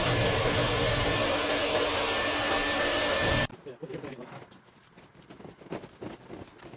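A vacuum runs loudly and steadily, with a thin whine on top, during dryer vent cleaning. It cuts off abruptly about three and a half seconds in and gives way to quieter scattered knocks and handling clicks.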